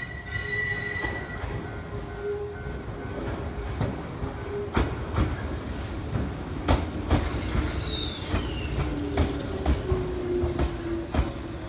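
Shizuoka Railway 1000 series electric train rolling slowly past into the station. From about five seconds in its wheels click sharply over rail joints and points. A high whine falls in pitch a little under eight seconds in, and a lower tone falls as the train slows.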